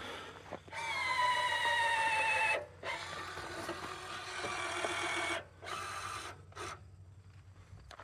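Electric steering actuator on a Husqvarna YTH2348 lawn tractor whining as it steers the tractor left and right: a whine of about two seconds that sags slightly in pitch, then a longer, steadier one, then two short bursts. A low steady hum runs underneath and stops near the end.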